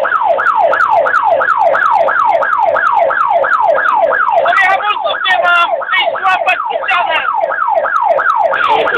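Emergency vehicle siren in a fast yelp, each cycle a falling sweep, about three a second, heard from the vehicle carrying it. In the middle, for two or three seconds, a second wavering siren tone overlaps it.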